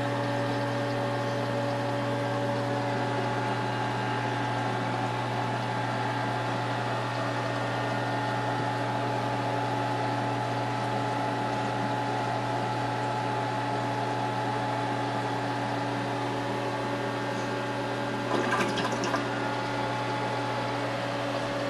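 Reef aquarium pumps running: a steady hum with several fixed tones over a hiss of moving water. Near the end comes a short cluster of knocks.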